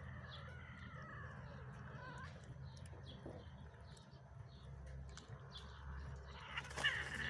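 High-pitched animal calls that waver in pitch, with a louder, sharper call near the end.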